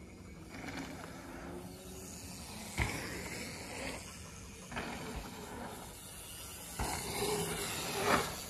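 Steady hissing outdoor noise with a few dull knocks. Near the end it swells to a louder rush as a mountain bike's tyres roll past close by on the dirt track.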